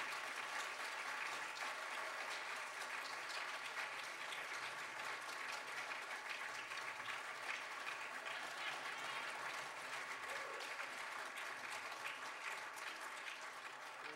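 Audience applauding steadily, fairly faint.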